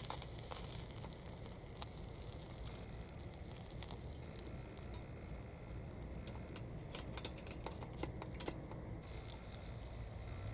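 Small wood fire burning with a steady hiss and scattered sharp crackles and pops, a quick run of them a little past the middle.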